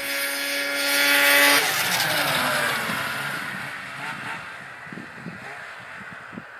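Lynx Rave 670 snowcross snowmobile's two-stroke engine held at high revs with a steady note. About a second and a half in the throttle closes, and the engine sound drops away and fades.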